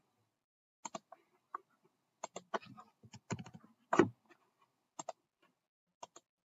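Sparse clicks and key presses at a computer keyboard and mouse, several coming in quick pairs, with a small flurry and one heavier knock about four seconds in.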